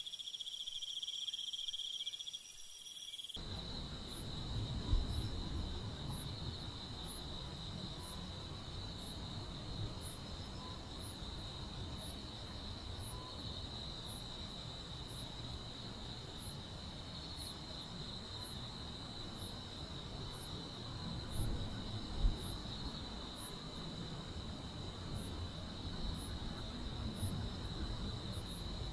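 Crickets and other grass insects of a summer night trilling steadily, with a higher, thinner chirp repeating evenly about one and a half times a second after a cut a few seconds in. A few faint knocks sound over a low background rumble.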